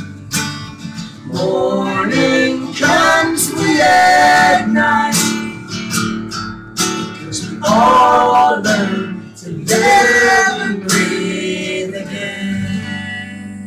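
Acoustic guitar strummed while a man and a woman sing together, getting quieter near the end.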